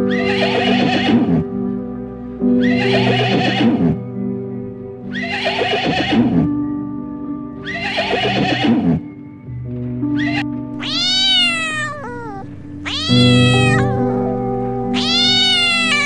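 A horse whinnying four times, about every two and a half seconds, each cry falling and quavering in pitch, then a cat meowing three times in the second half. Soft background music plays under both.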